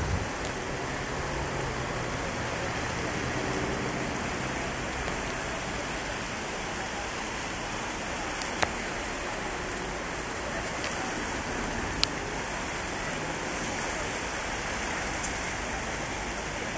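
Steady rushing of a river in flood: fast, muddy floodwater flowing hard through the channel. Two sharp clicks, one about eight seconds in and one about three seconds later.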